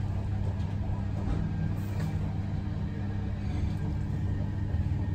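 Steady low rumble and hum of a train heard inside an SNCB ICR passenger coach as it runs into a station, with a few faint clicks.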